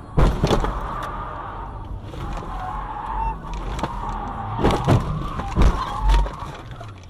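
Car crash heard from inside the car: a loud impact just after the start, then a string of bangs and thuds as the car goes off the road, the heaviest hits clustered past the middle. A wavering high tone sounds under the impacts.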